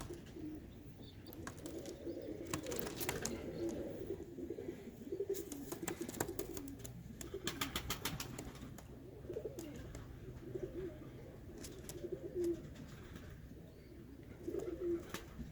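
Birmingham Roller pigeons cooing continually in the loft, with scattered light clicks in two clusters, about three seconds and eight seconds in.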